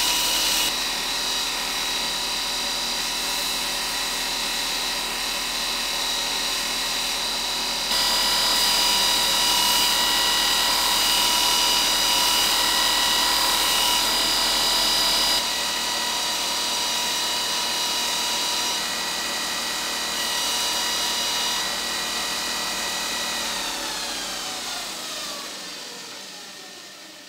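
Belt grinder with an electric motor running, its abrasive belt grinding a steel hammer head: a steady motor whine over a grinding hiss. Near the end the grinder is switched off and winds down, its pitch falling and the sound fading.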